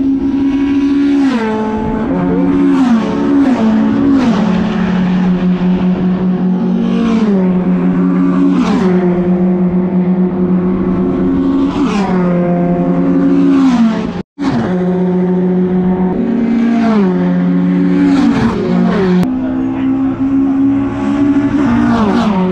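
Racing pickup trucks running flat out during qualifying, passing one after another, each engine note dropping in pitch as it goes by, over a steady engine drone. The sound cuts out for a moment about two-thirds of the way through.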